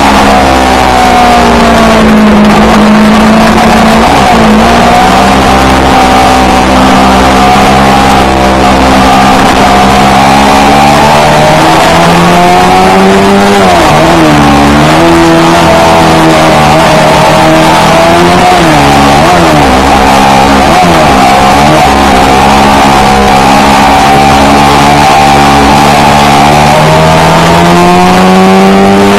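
Yamaha R3's 321 cc parallel-twin engine through an aftermarket Akrapovic exhaust, loud as the bike is ridden. Its pitch climbs at the start and holds, dips and wavers a few times around the middle with throttle changes, then climbs again near the end and drops.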